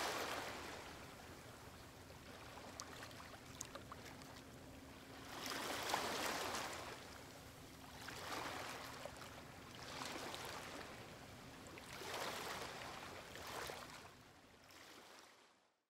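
Faint water lapping and washing, a soft rush of noise that swells and falls back every couple of seconds over a faint steady low hum, fading out near the end.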